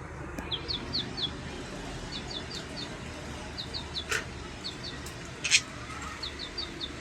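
Budgerigars chirping: short, quick high chirps in runs of three or four, with two sharp clicks, the louder one about five and a half seconds in.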